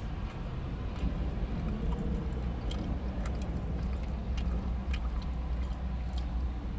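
A mouthful of fried-chicken-and-glazed-doughnut sandwich being chewed with the mouth open, with scattered small wet clicks and smacks. Under it runs a steady low hum in the car cabin.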